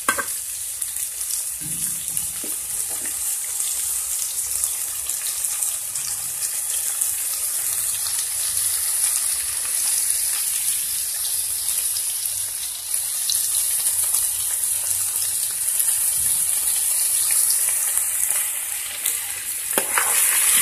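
Whole bommidalu fish with onions and green chillies sizzling in hot oil in a pot, a steady hiss as they soften in the oil before the salt and chilli powder go in.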